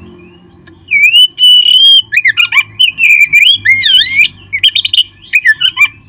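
Oriental magpie-robin (kacer) singing loudly in a fast, varied run of clear whistled phrases with quick rising and falling glides, starting about a second in.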